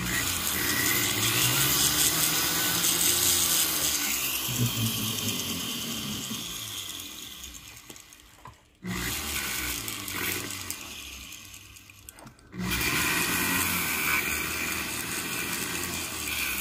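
Flex shaft rotary tool spinning a diamond cutoff wheel, grinding a small piece of lapis lazuli down to fit a ring inlay. The sound cuts off abruptly twice, a little past the middle and about three quarters through, and starts again each time.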